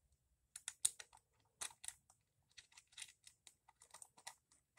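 Small metal parts of a model piston engine kit clicking and tapping as they are fitted together by hand: a run of faint, irregular light clicks starting about half a second in.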